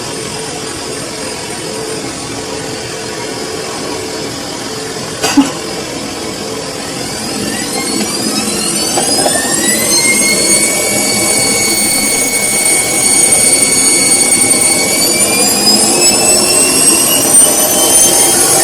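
Samsung washing machine speeding up into its spin: the motor's whine rises in pitch, holds steady, then rises again about two-thirds of the way through, growing louder over a steady hum. A single sharp click comes about five seconds in.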